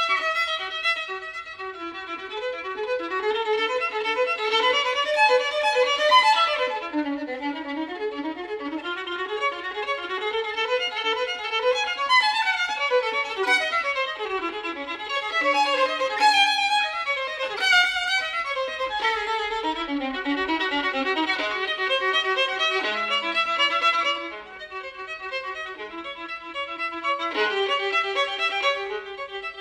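Background violin music: a melody with quick runs of notes.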